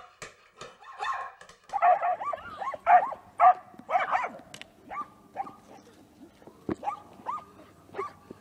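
Dogs barking repeatedly in short calls, loudest and most frequent in the middle.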